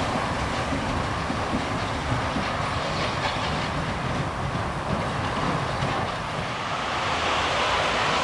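Steam locomotive working a train away along the line, its exhaust and running noise blending into a steady rush.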